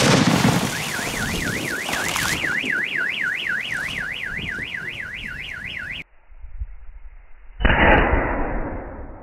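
A big firecracker explodes underwater and the water column splashes down, while a car alarm starts up and warbles rapidly up and down for about five seconds. Near the end a second big firecracker goes off with a loud bang.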